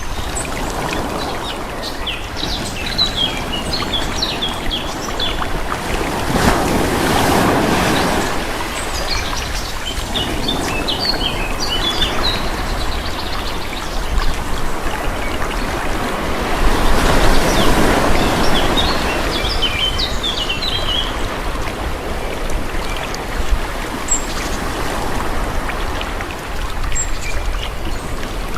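Calm sea waves washing in, swelling twice, with small birds chirping in short bursts between them.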